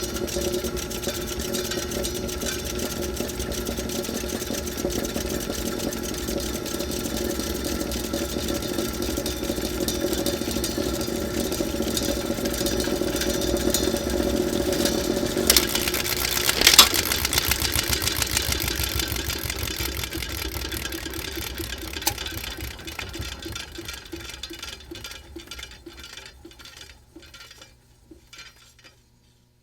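Film projector running with a fast, even mechanical clatter. About halfway through there are two sharp clicks, then the clatter fades and slows into separate beats as the mechanism winds down and stops.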